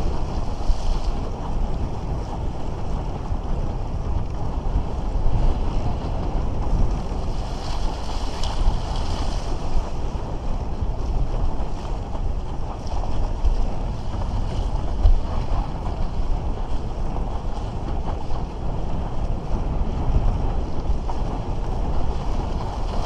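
Wind buffeting the microphone, a steady low rumble, over the rush and splash of water along a windsurf raceboard's hull as it sails. The hiss of spray grows louder about eight seconds in.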